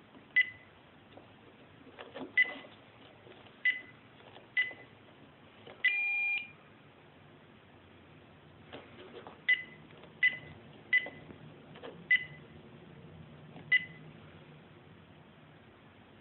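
Piezo buzzer on an Arduino-built airsoft bomb prop giving a short high beep at each keypad press: four beeps, then a longer tone at a different pitch about six seconds in, then five more beeps spaced under a second apart.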